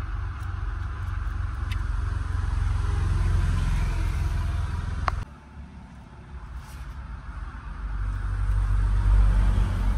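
Low rumble of road vehicles passing the cab, swelling and fading. A sharp click about five seconds in, then the rumble drops away suddenly before building again to a peak near the end.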